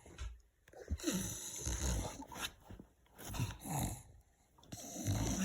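English bulldog making noisy, breathy snorting and grunting sounds in three spells of a second or so, frustrated as he strains to reach a toy held under his chin.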